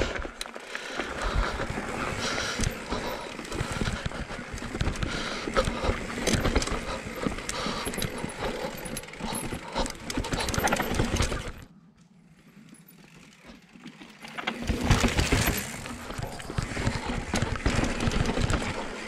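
Cube Stereo 170 full-suspension enduro mountain bike riding down a rocky dirt trail: tyres rolling and crunching over dirt and stone, with a constant rattle of knocks and clicks as the bike takes the rough ground. It goes much quieter for about three seconds shortly past the middle, then the rattling picks up again.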